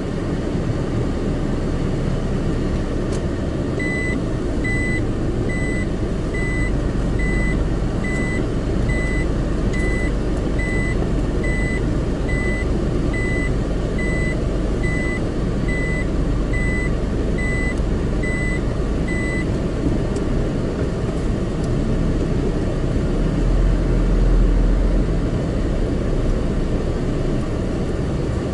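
Steady engine and road noise of a car being driven, heard from inside the car. From about four seconds in, a high electronic beep repeats a little faster than once a second for some fifteen seconds, then stops.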